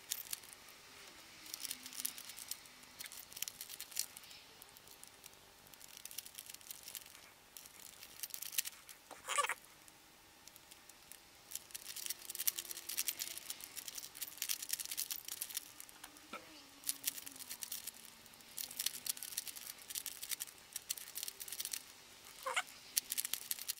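Rubik's cube being turned by hand in quick runs of moves, its plastic layers clicking and rasping as they rotate, with short pauses between runs.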